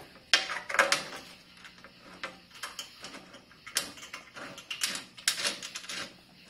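Irregular metal clicks and taps as mounting bolts are threaded and snugged by hand into a metal skid guard under a car, with the plate and hardware knocking lightly against each other.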